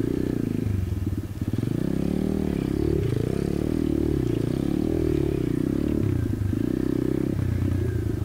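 Apollo RFZ 125cc pit bike's single-cylinder four-stroke engine running at low speed, its revs rising and falling with the throttle, easing off briefly about a second in.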